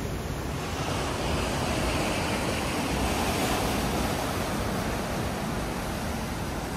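Ocean surf breaking on a rocky shore: a steady rush of waves.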